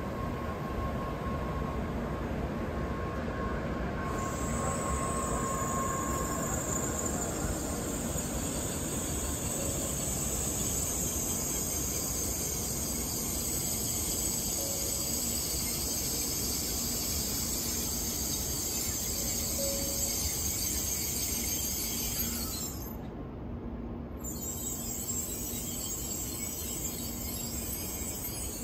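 N700-series Tokaido Shinkansen trains running through the station: a steady rushing noise with a strong high hiss on top. The high hiss cuts off abruptly about three-quarters of the way through, leaving a quieter rumble.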